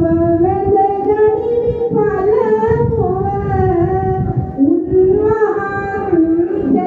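A woman singing solo into a microphone, holding long notes that slide and bend between pitches.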